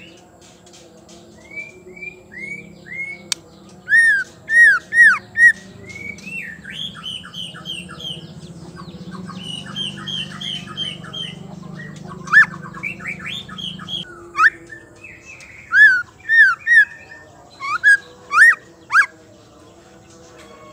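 Female white-rumped shama singing: loud, arched whistled notes, often in quick groups of three or four, with a busier twittering, chattering phrase through the middle. A faint low hum runs beneath the first two-thirds.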